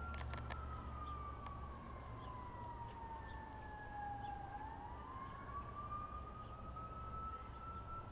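Fire truck's Federal Signal Q2B mechanical siren, its pitch sliding slowly down for about four seconds and then winding back up, over a low rumble.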